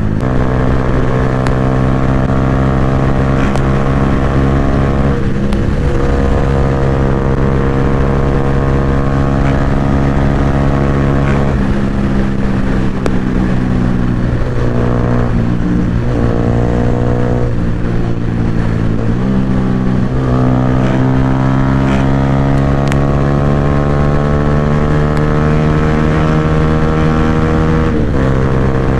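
Yamaha R15 V3's single-cylinder engine through a loud aftermarket Akrapovic exhaust, ridden on the road: the engine note climbs slowly in each gear and drops sharply at gear changes, several times.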